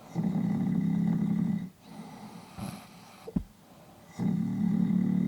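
Two people snoring at once: one gives two loud, low, buzzing snores about four seconds apart, each lasting about a second and a half, while the other's softer snoring and breathing fill the gaps. A brief click comes between the two loud snores.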